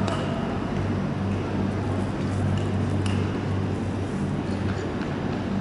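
Steady low hum of an indoor speed-skating rink hall, with a few faint ticks and scrapes.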